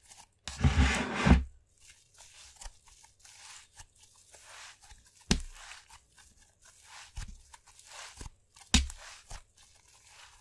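Thick white slime stretched, folded and squeezed between hands, giving a run of crackling, tearing sounds. A louder crackling burst comes about a second in, and sharp pops come near five and nine seconds.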